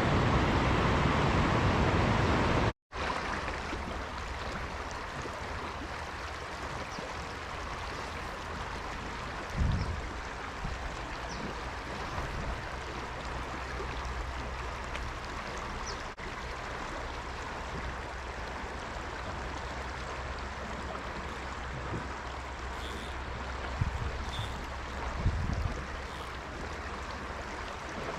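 Steady rush of a flowing river. It is louder for the first three seconds, breaks off for an instant, then runs on more quietly, with a few soft low thumps.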